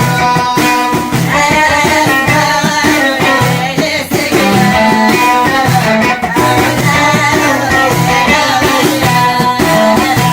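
A song played on plucked string instruments over a steady, repeating bass line, with singing.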